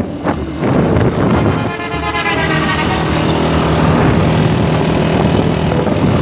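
Motorcycle engine running under way, with wind rushing over the microphone. About two seconds in there is a brief rising horn-like tone.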